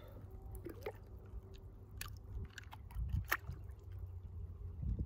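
Scattered faint clicks and rustles of handling over a steady low rumble.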